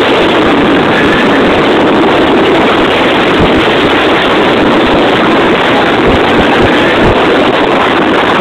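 Mazda RX-8's twin-rotor rotary engine running hard, heard from inside the car as a loud, even, distorted blur of engine and wind noise, with a few low thumps in the second half.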